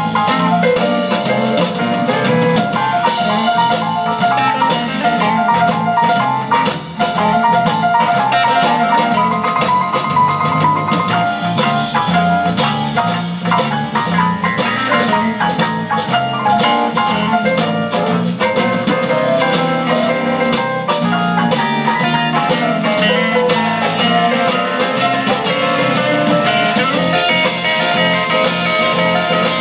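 Live blues band with keyboards, drum kit, bass and electric guitar playing an instrumental passage, with quick runs of notes up high over a steady beat and bass line.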